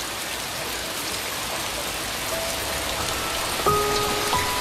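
Heavy rain falling steadily. A few soft held notes of background music come in about halfway through.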